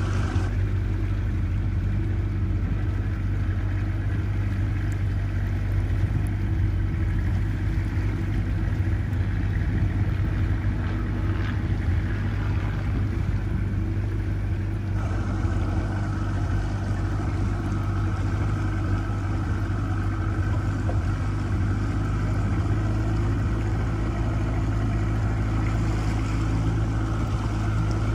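Boat motor running steadily under way, with a constant low hum. The upper part of the sound thins out for the first half and comes back fuller about halfway through.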